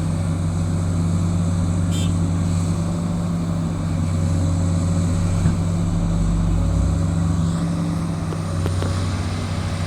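Heavy diesel engines of a large excavator and dump truck running steadily, a deep even drone. A short sharp knock about five and a half seconds in.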